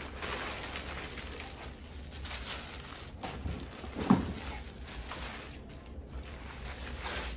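Plastic packaging rustling and crinkling as a folded garment is unwrapped and pulled out of its bag, with a brief thump about four seconds in.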